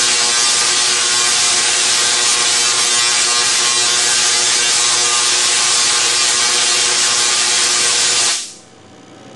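SIDAC-driven Tesla coil running, a loud steady buzzing hiss that cuts off suddenly about eight seconds in.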